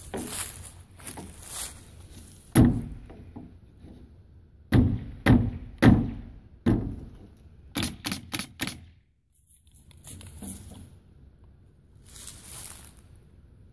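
A series of heavy thumps and knocks: a loud one about two and a half seconds in, three about half a second apart near the middle, another just after, then a quick run of four lighter knocks.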